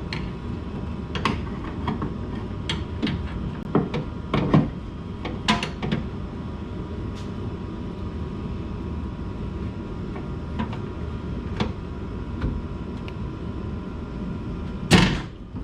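Scattered metal knocks and clicks from tool work inside the car door, then one loud bang near the end, which is called really loud.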